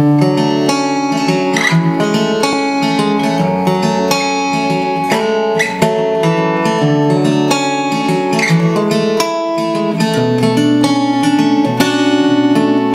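Solo acoustic guitar playing an instrumental intro, notes picked in quick succession without singing.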